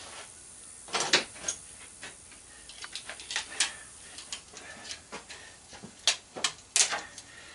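Irregular sharp clicks and clinks of steel pliers against small metal and circuit-board parts from a CRT monitor, the loudest about a second in and near the end.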